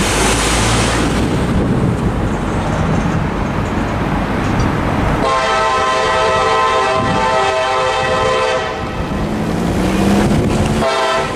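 Diesel locomotive horn on an approaching CSX freight led by EMD SD70MACs, sounding the grade-crossing signal: one long blast about five seconds in, then a short blast near the end. In the first few seconds a road vehicle passes close by.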